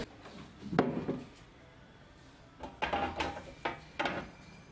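Sugarcane stalks knocking against one another and against a digital weighing scale as they are laid on it: a single knock just before a second in, then a cluster of several knocks between about three and four seconds.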